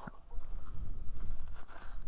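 Wind rumbling on the microphone with crunching and rattling from an electric dirt bike riding over a dirt trail, scattered small clicks.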